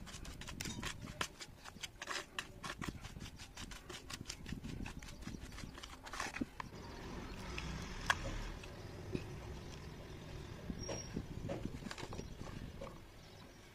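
A metal spoon stirring and slapping thick wet red clay slurry in a plastic tray: a quick run of sticky, wet clicks. About halfway through, a soft hiss as dry powdered clay is tipped onto the slurry, followed by scattered taps.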